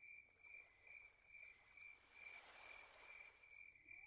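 Near silence, with faint insect chirping: a high, evenly repeated chirp that pulses steadily.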